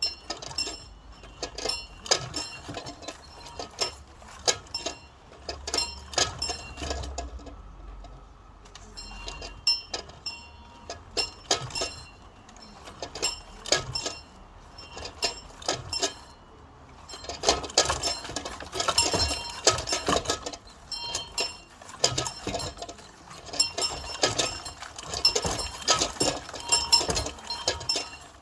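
A bell rung by pulling its rope, struck over and over in quick, irregular clanging strokes with high ringing tones. It briefly lets up twice, then rings denser and louder in the second half.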